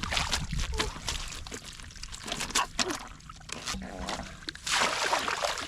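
Water splashing and sloshing in quick, irregular bursts, with a few brief high squeaks.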